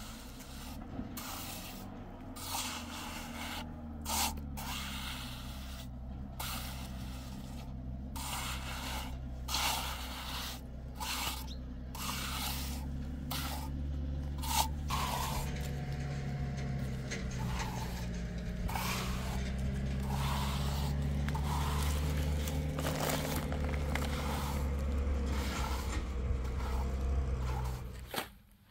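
Hand trowel scraping and smoothing wet cement in short, repeated strokes, about one or two a second. Under it runs a steady low hum.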